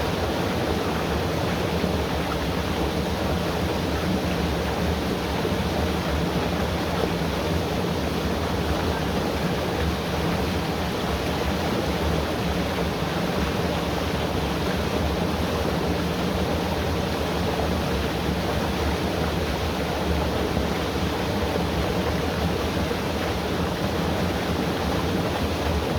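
Loud, steady rush of falling water, an even roar with no break or change.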